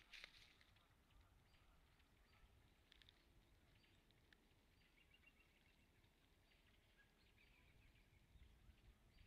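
Near silence: faint outdoor ambience, with a faint rustle at the very start and a short run of faint, high ticks about halfway through.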